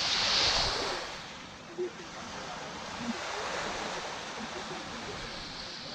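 Small sea waves washing up on the beach: the wash is loudest in the first second, then eases into a quieter, steady hiss of water running back. Faint voices murmur underneath, and there is a brief thump about two seconds in.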